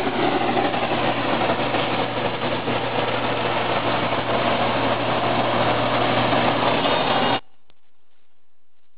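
Rice combine harvester's engine running steadily, with a constant low hum, as it cuts standing rice. The sound cuts off abruptly about seven seconds in, leaving only faint ticks.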